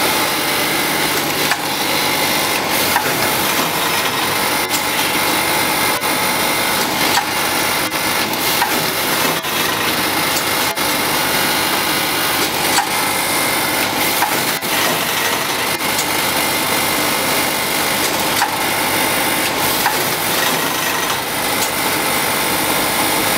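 Automatic vertical coffee-powder packaging machine running: a steady mechanical whirr of belts and drives, with sharp clicks or knocks every second or two as it works through its bag-making, sealing and cutting cycle.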